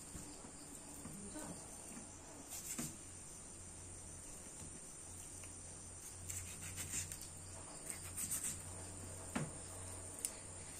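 A knife cutting raw chicken off the bone on a steel table, with scattered light clicks and taps, more of them in the second half, over a steady high-pitched background drone and a low hum.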